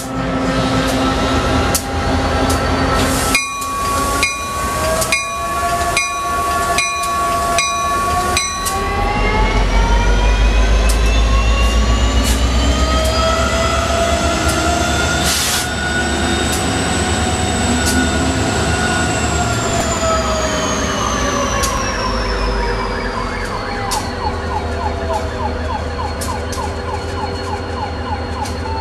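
Diesel locomotive going by close: a bell rings about seven times, evenly spaced, a few seconds in. Then the engine's deep rumble swells, with long whining and squealing tones that slide up and back down in pitch as the train passes.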